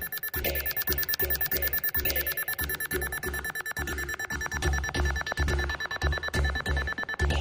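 Background music with a steady beat: a repeating low pulse about twice a second, fast even ticking and a held high tone.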